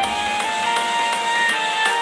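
Instrumental theme music with a plucked-string and keyboard melody and a steady beat.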